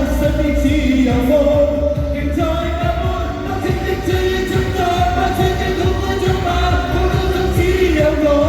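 Cantopop song sung over a backing track with a steady bass beat, the voice holding long notes that glide between pitches.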